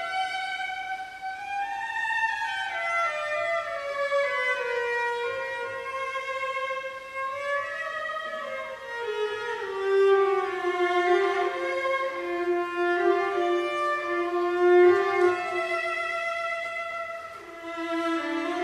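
Solo cello played with the bow in its upper register: a slow melodic line that falls step by step and settles on a long held note in the second half.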